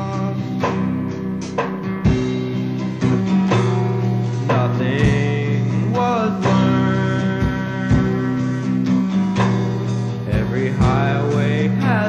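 Guitar-led band music from a 1983 cassette recording: an instrumental passage between sung lines, with steady strummed guitar chords.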